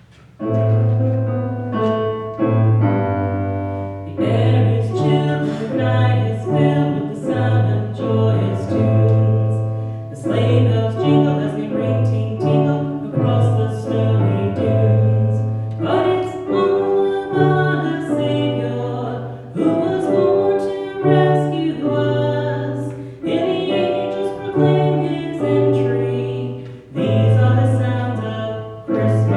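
A Christmas song: piano accompaniment over a held bass line, with singing.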